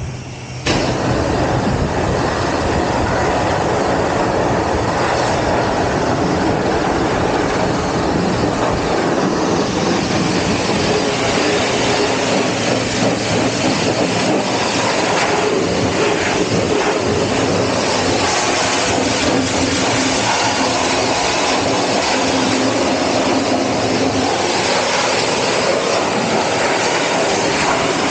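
High-pressure wash wand spraying a steady jet of water onto a motorcycle's engine and frame to blast off built-up grime. The spray breaks off briefly right at the start, then runs on unbroken.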